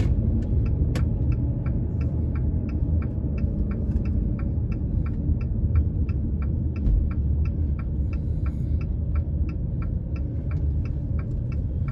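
Car turn-signal clicking steadily, about three clicks a second, signalling a turn, over the low rumble of the car's engine and tyres inside the cabin.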